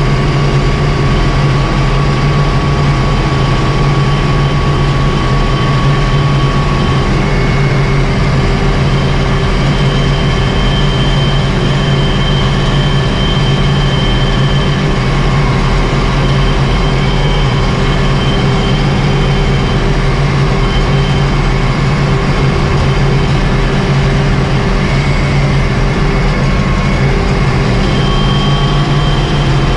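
Ursus 1224 tractor's six-cylinder diesel engine running steadily while the tractor drives at road speed, heard from inside the cab.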